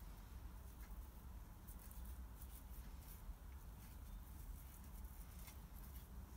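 Faint light scratching and small ticks of a sealant brush being dabbed around a gasket on a metal gearbox casing, over a low steady room hum.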